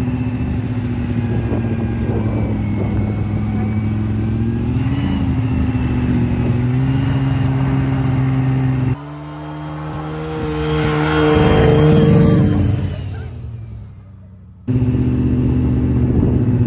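Snowmobile engine running steadily at cruising speed, heard from the rider's seat. About nine seconds in, the sound cuts abruptly to another stretch where the engine grows louder and then fades. A few seconds later the steady running returns just as suddenly.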